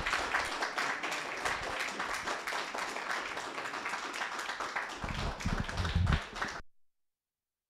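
Audience applauding: dense, steady clapping from a small crowd that stops abruptly near the end. A few low thumps sound under the clapping about five seconds in.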